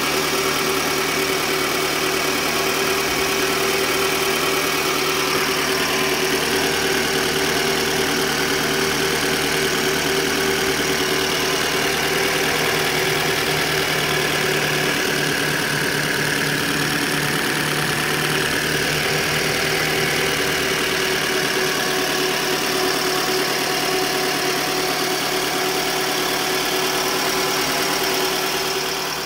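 Toyota Estima's engine idling steadily, heard close up in the open engine bay. The sound drops a little near the end.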